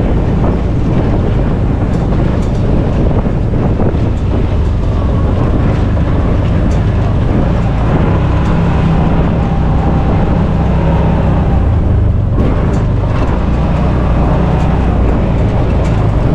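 Side-by-side UTV driving along a dirt trail: its engine drones steadily, with scattered light knocks and rattles from the vehicle over the ground.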